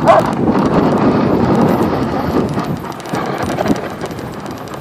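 Dog sled running over a packed-snow trail: a steady rough hiss and rumble from the runners, with one dog bark right at the start.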